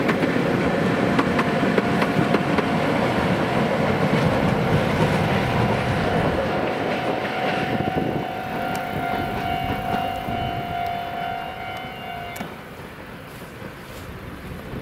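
A Chichibu Railway locomotive-hauled train passing close by, its wheels rumbling and clattering loudly, then fading away. About halfway through, a steady high-pitched tone holds for several seconds and cuts off suddenly near the end.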